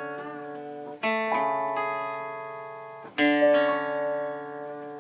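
Acoustic guitar chords strummed and left to ring, a new chord struck about a second in and another just after three seconds, each slowly fading.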